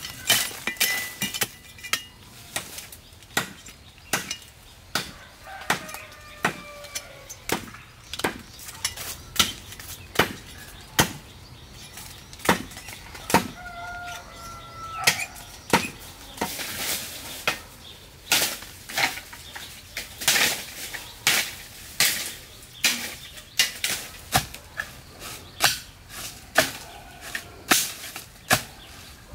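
A large knife chopping into green bamboo, with sharp blade strikes at a steady pace of about one a second. A few short calls from an animal sound faintly behind the chopping.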